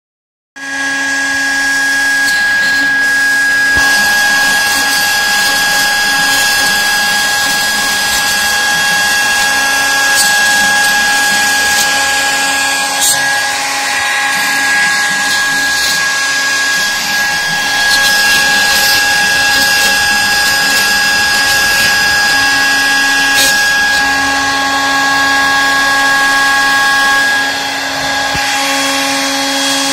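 CNC router spindle running steadily with a high whine over a hiss of cutting noise as its bit carves a relief into a Corian slab. The whine drops out near the end.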